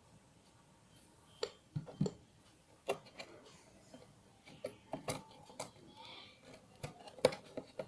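Small irregular clicks and knocks from handling a toy coin-operated squishy vending machine and its coin, the sharpest near the end.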